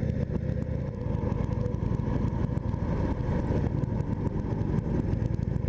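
2015 Indian Chief Vintage's Thunder Stroke 111 V-twin engine running steadily while the motorcycle is ridden along at town speed.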